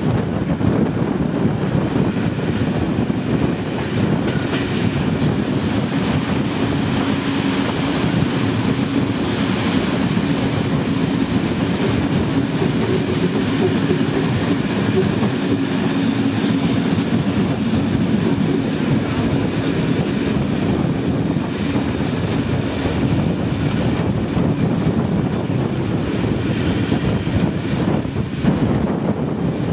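Rail coaches of a special train hauled by a steam locomotive running along the line: a steady rumble with wheels clacking over the rail joints.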